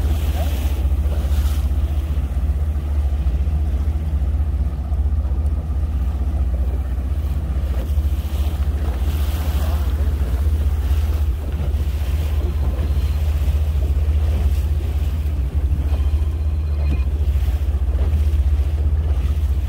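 Small fishing boat under way at trolling speed: its outboard motor runs steadily, with wind rumbling heavily on the microphone.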